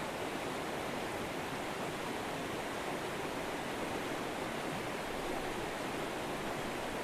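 River water flowing, a steady rushing noise without breaks.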